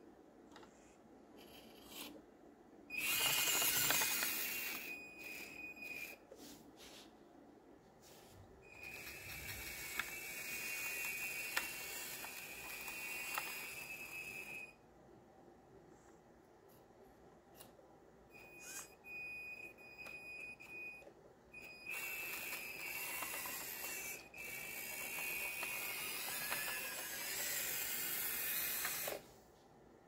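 Small electric motors of a radio-controlled model CAT skid steer whining as it drives and works its pallet forks, in several stop-start bursts of a few seconds each. Each burst is a steady high whine with a gear hiss over it, starting and stopping abruptly.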